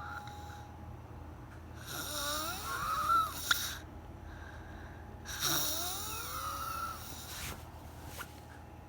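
Very loud snoring: two long snores, each with a whistling, wheezy pitch that slides down and back up, separated by a quieter pause. A brief sharp click comes at the end of the first snore.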